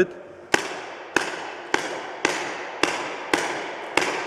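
Paintball marker firing a steady string of single shots, just under two a second, each sharp crack echoing through a large hall.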